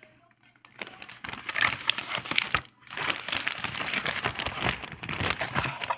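Crinkling and rustling of packaging as cigars are unwrapped from a mailed package, in two stretches with a short pause about halfway.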